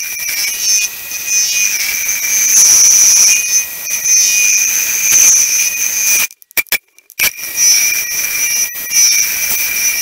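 Metal lathe turning down the base of a Stihl 066 Magnum chainsaw cylinder to set its squish gap, the cutting tool and spinning jug giving a loud steady high-pitched squeal. The sound cuts out for about a second partway through, then carries on.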